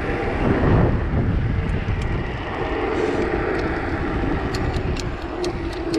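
Wind on the action camera's microphone and tyre rumble from a bicycle riding along. A steady hum comes in about halfway through, and sharp ticks scatter near the end.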